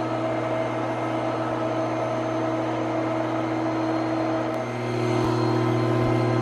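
Fronius TIG welding machine running idle, its cooling fan making a loud steady hum that gets a little louder about three-quarters of the way through.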